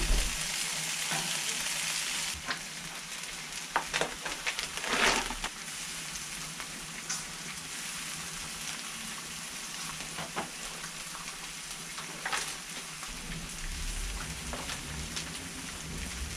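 Steak and vegetables sizzling on the hot griddle plate of a gas grill, a steady hiss, with a few short clicks and rustles as food is handled and laid on. A low rumble comes in near the end.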